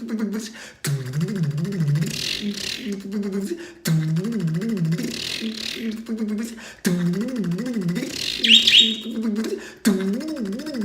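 A man's voice imitating a car engine cranking over and failing to start: a low, wavering drone in phrases of about three seconds, each cutting off and starting again. A short bird chirp comes about eight seconds in.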